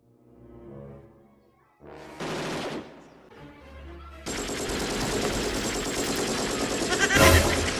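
Brief snatches of music, then from about four seconds in a loud, dense stream of rapid machine-gun fire with a louder blast near the end: a gunfire sound used as a phone ringtone.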